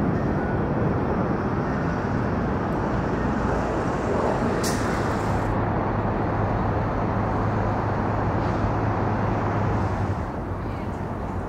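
Outdoor city ambience: a steady rumble of road traffic, with a low steady hum through the middle stretch and a brief hiss about halfway through.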